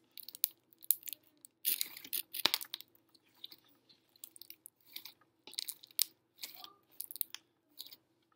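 Hands kneading and squeezing a lump of mixed blue slime, giving irregular wet crackles and pops. The crackling is busiest about two seconds in.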